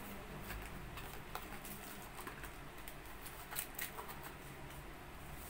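Packaging being handled: a small cardboard box insert and a sealed plastic bag of small fittings, giving faint rustling with a few scattered light crinkles and clicks.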